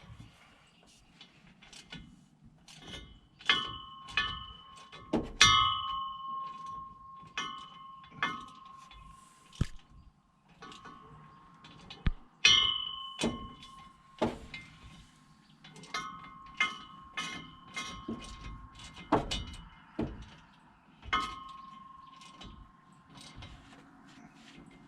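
Irregular metallic clanks of hand tools knocking against steel parts under a truck, each strike ringing briefly at the same pitch. The loudest come about five and twelve seconds in.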